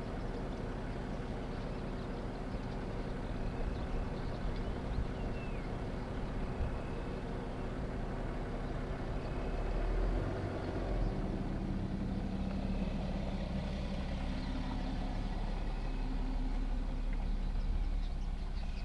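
A vehicle engine idling steadily, with a few short, high chirps above it now and then.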